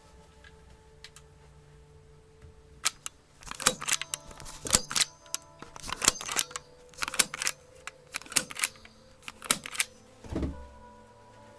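A series of sharp knocks or strikes in small clusters, about one cluster a second, over soft background music with held tones; a duller, deeper thud comes near the end.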